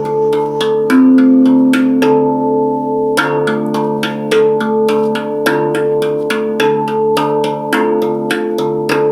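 Handpan played with quick, even strikes, about three or four a second, its steel notes ringing on and overlapping. About two seconds in, the striking stops for a second, leaving one note ringing, then picks up again.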